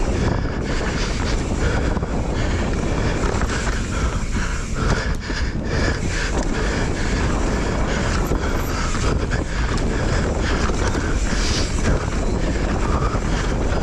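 Mountain bike descending rough dirt singletrack: a steady low rumble of wind on the microphone mixed with tyres rolling over dirt, rocks and roots and the bike rattling.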